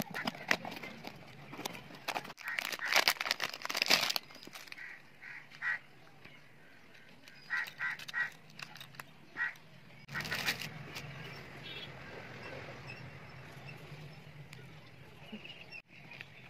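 A cardboard parcel being cut open with scissors and handled, with clicks, scrapes and rustling of the box and packaging, densest in the first few seconds. In the middle come a string of short high squeaks or calls, then a louder rustle and a low steady hum.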